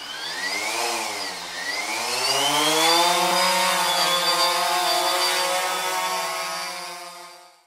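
Buzz of a small motor, the sound of a drone flying, its pitch dipping about a second in, then climbing and holding steady before fading out near the end.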